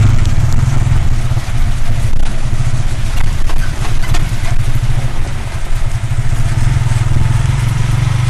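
Steady engine drone of a motor vehicle, heard from inside its passenger compartment while riding, with road noise and scattered rattles and knocks.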